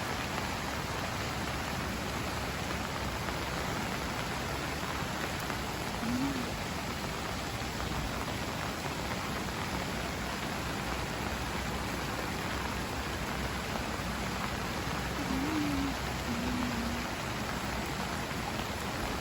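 Steady rain falling and pattering on surfaces, with a few faint, short low-pitched calls about six seconds in and again near sixteen seconds.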